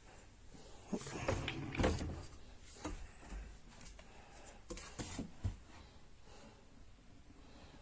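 Scattered knocks and light rattles of things being handled, in two clusters: one about a second in and one about five seconds in.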